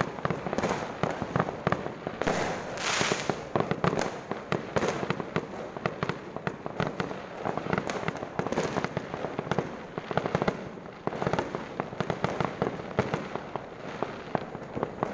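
Fireworks going off in a rapid, unbroken series of bangs and crackling pops.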